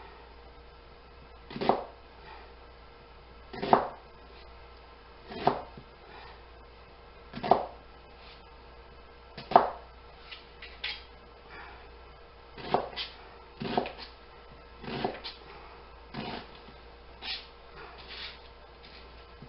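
Kitchen knife cutting through an onion onto a cutting board: single, deliberate chops about every two seconds, coming somewhat quicker in the second half.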